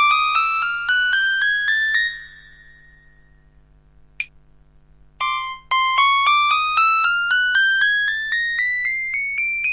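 Kurzweil KA90 digital piano playing a rising run of single notes, about four or five a second, climbing step by step into the high register. The run stops about two seconds in; there is a lull with one click, a short note, and then another rising run starts and climbs to the end. A steady low hum sits underneath.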